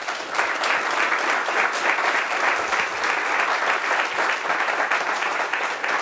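Audience applauding: a dense, steady clapping of many hands.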